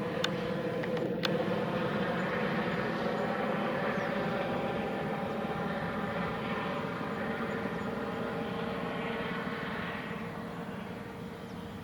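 Airbus H130 helicopter running, its single turboshaft engine giving a steady whine over rotor noise, getting quieter in the last couple of seconds.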